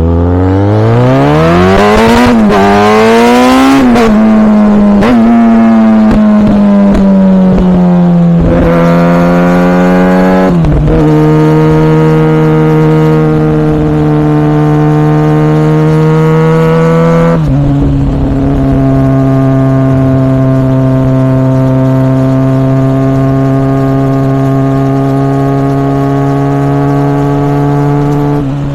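Kawasaki ZX6R 636 inline-four through a Yoshimura R77 exhaust, accelerating hard with the revs climbing steeply and two quick upshifts in the first four seconds. Several more upshifts follow, each dropping the pitch. The last ten seconds or so are steady cruising in a high gear.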